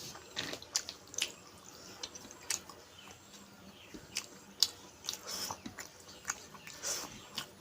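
Close-up eating sounds of a person chewing a meal: irregular wet smacks and clicks of the mouth.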